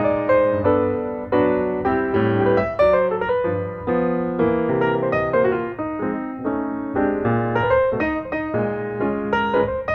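Background music played on piano: a run of sustained notes and chords at a moderate pace.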